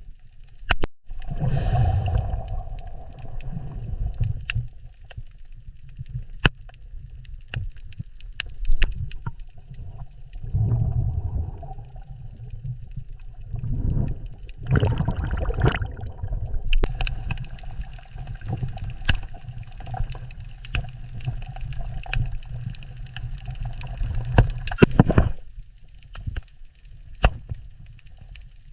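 Underwater ocean ambience: a low rumble of moving water that swells and eases every few seconds, with scattered sharp clicks and some gurgling.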